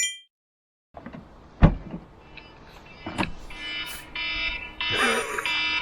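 Electronic warning beeper sounding short, pitched beeps over and over, about one and a half a second, starting a little past halfway, after a couple of sharp knocks.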